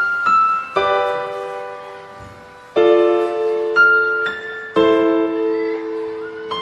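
Solo piano music, slow and gentle: chords struck every second or so, each left to ring and fade.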